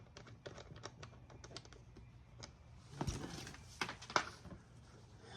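Quick small plastic clicks as the latches and lock of a tool-set case are worked, then a few louder snaps and knocks about three to four seconds in as the case comes open.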